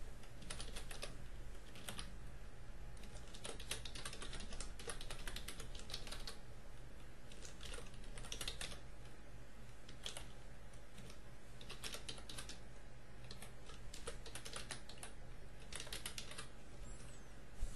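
Computer keyboard typing in irregular runs of keystrokes with short pauses between them, over a steady low hum.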